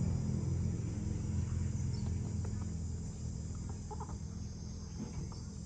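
Steady low hum that slowly fades, under a constant high, thin chirring and a few faint short calls about four seconds in.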